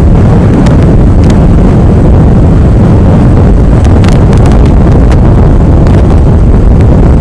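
Strong wind blasting the microphone of a riding motorcycle: a loud, steady low rumble with a few brief crackles, burying any engine sound.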